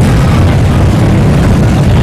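Motorcycle engines running, a loud, steady low rumble.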